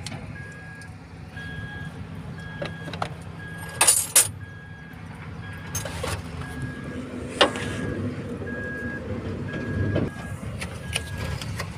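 A warning beeper sounds a short tone about twice a second over a low steady hum. Hand tools clink sharply on metal: twice about four seconds in, and once more a few seconds later.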